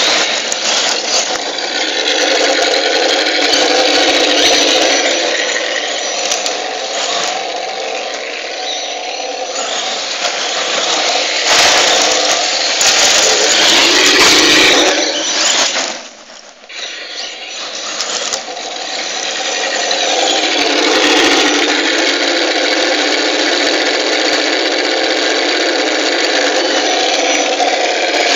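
Brushless Tamiya TXT-2 RC monster truck driving on gravel: continuous motor and drivetrain whine with the tyres crunching over the gravel, dipping briefly a little past halfway as the truck eases off.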